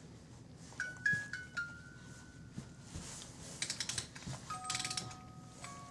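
Four short electronic beeps in quick succession, then two bursts of rapid clicking over a pair of steady tones.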